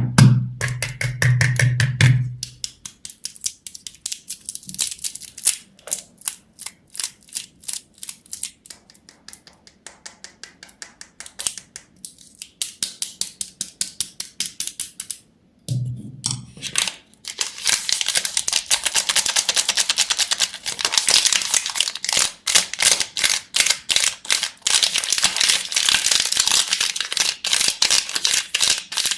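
Close-up crackling and clicking of candy being handled: sparse, quieter clicks at first, then dense, louder crackling over the last twelve seconds or so. A short stretch of music opens it.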